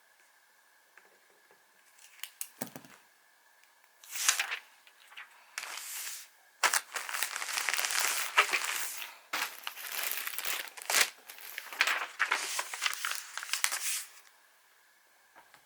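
Plastic packaging crinkling and rustling as it is handled, in repeated bursts through most of the stretch, after a few light taps.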